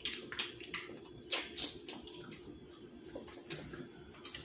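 Close-miked wet eating sounds: irregular sticky smacks and clicks from chewing and from sauce-coated fingers handling seafood-boil food.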